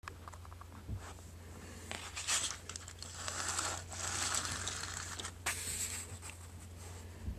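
Handling noise as a small toy engine is picked up by hand: a few separate knocks and a few seconds of rustling and rubbing, over a steady low hum.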